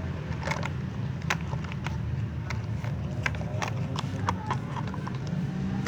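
Small plastic toy pieces clicking and knocking as they are handled and fitted together, a dozen or so irregular sharp clicks over a steady low hum.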